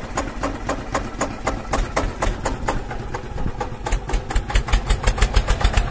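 New Holland 3230 tractor's three-cylinder diesel engine running as it pulls a loaded trolley, with a steady low rumble and a regular knocking beat of about five knocks a second.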